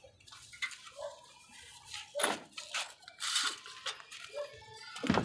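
A few light knocks and clinks from hands handling building material and tools, the sharpest knock near the end.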